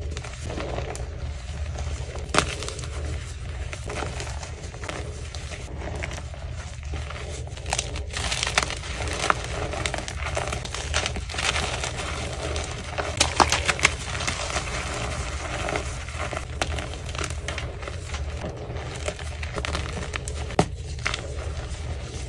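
Hands crushing and crumbling blocks of plain BSN gym chalk topped with dyed Holi powder, making continuous dry crunching and crackling with sharp snaps as pieces break. The crunching is busiest around the middle.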